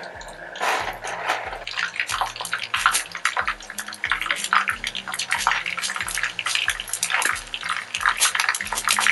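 Pieces of pork skin deep-frying in a pan of hot oil: dense sizzling and crackling that begins about a second in and grows louder from about two seconds.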